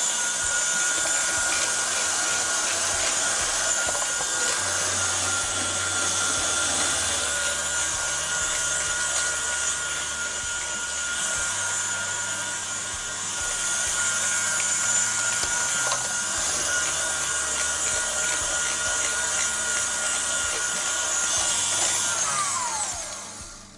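KitchenAid Artisan stand mixer running with the slicer/shredder attachment, shredding carrot: a steady motor whine over the rasp of the carrot against the spinning drum. The motor winds down with a falling whine near the end.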